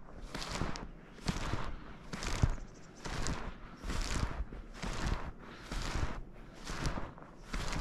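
Snowshoes crunching and compressing fresh powder snow, one crunch per step in a steady walking rhythm of a little more than one step a second.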